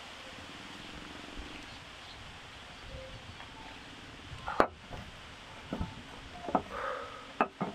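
Steady outdoor background hiss with a faint low hum. In the second half a person moving close to the microphone makes a few sharp knocks and rustles, with the loudest knock just past halfway.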